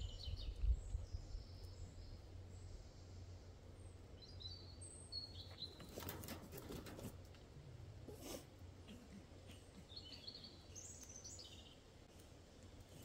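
Faint small birds chirping in short bursts, with a stretch of rustling and scraping a little past the middle as a wire snare is worked loose from a wild boar piglet's head.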